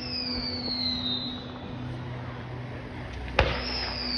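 Fireworks. A high whistle falls in pitch and fades over the first second. A little over three seconds in comes a sharp crack, followed by another whistle that falls in pitch.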